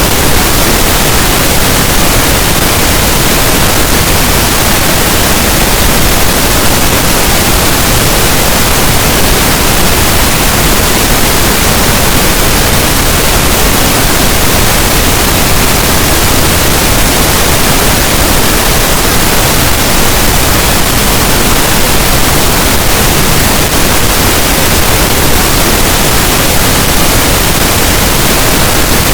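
Steady pink noise: a loud, even, unchanging hiss with no tones or breaks.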